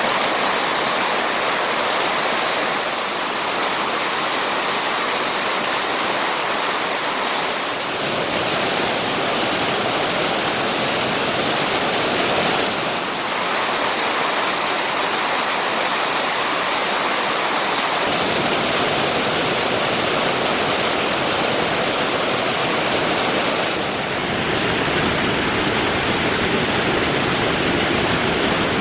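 Mountain-stream waterfall: a steady, loud rush of falling water, changing slightly in tone every few seconds.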